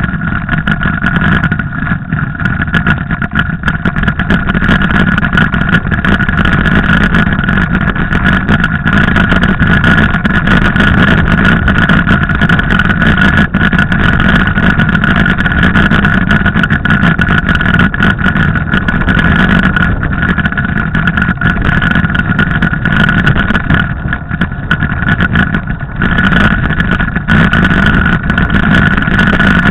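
Mountain bike riding down a snowy track, heard from the bike- or helmet-mounted camera: a loud, steady rushing noise of wind on the microphone and tyres rolling, with a constant high hum.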